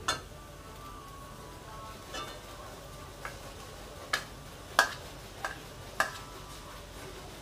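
Scattered sharp taps and clinks, about seven spread over several seconds, as scrambled egg is tipped and knocked out of a plastic bowl into a steel kadai of fried noodles, over a faint steady hiss.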